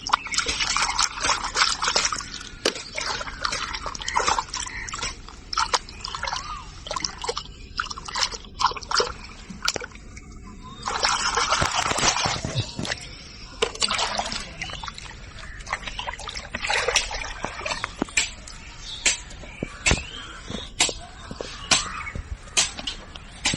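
Water splashing and dripping, with two longer bursts of splashing near the start and about eleven seconds in, and many separate drips and clicks in between.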